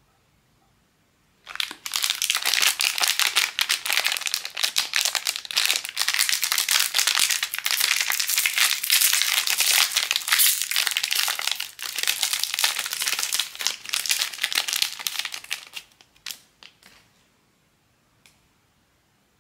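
Crinkly blind-bag packaging being handled and crumpled by hand. A dense crackle starts about a second and a half in and runs for about fourteen seconds, then gives way to a few last separate crinkles.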